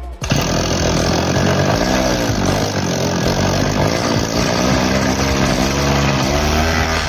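Small petrol grass-cutter engine running unloaded, its speed wavering up and down a couple of times while it runs.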